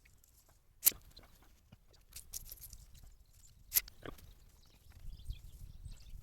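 Work noise from laying sewer pipe: two sharp knocks about three seconds apart, with quieter taps and scrapes between them.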